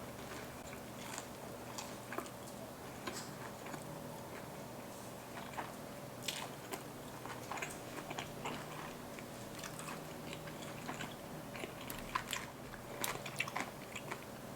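Eating sounds: a person biting and chewing a cheese corn dog, with short crunchy clicks that come more often near the end.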